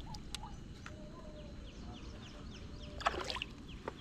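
A bird calling over and over in short falling chirps, about two a second, over a low outdoor rumble. A brief louder sound stands out about three seconds in.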